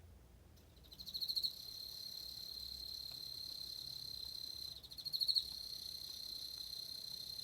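Emma field cricket singing: a high trill that starts about a second in, pulses louder twice (at the start and again about five seconds in), and holds steady in between until it stops near the end.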